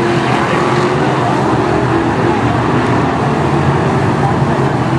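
Several BriSCA F1 stock cars' V8 engines running hard at race speed as the pack goes by, a loud, steady, overlapping engine noise.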